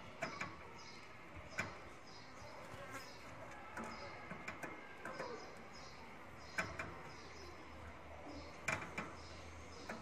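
Small birds chirping quietly and repeatedly, with a few sharp clicks or knocks now and then, the loudest a little after six seconds in and again near nine seconds.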